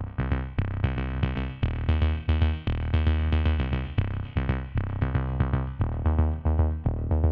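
Electronic background music: a quick repeating synthesizer figure over deep bass notes with a steady beat.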